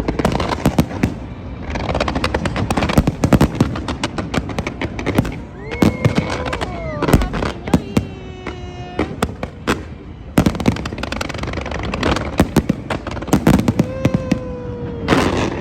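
Fireworks display going off: rapid bangs and crackling bursts one after another, with a few drawn-out pitched sounds mixed in.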